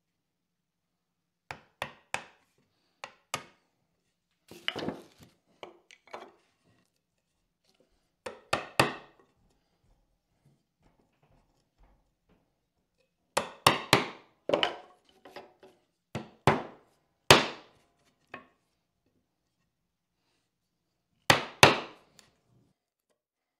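Mallet striking a chisel to chop a mortise in a wooden board. Sharp wooden knocks come in short groups of two to four, with pauses of a second or more between groups.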